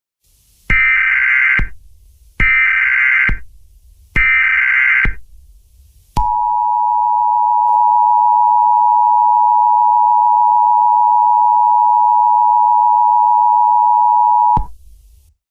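Emergency Alert System broadcast signal: three short bursts of warbling SAME header data tones, then the two-tone EAS attention signal held steadily for about eight seconds before cutting off sharply. The attention tone marks that a spoken emergency message follows.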